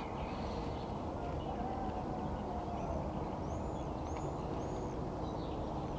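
Steady low outdoor background noise, with a bird giving three short, high, arched chirps evenly spaced a little past the middle.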